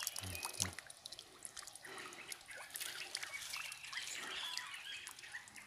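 Faint water drips and small ticks, with a few faint bird chirps.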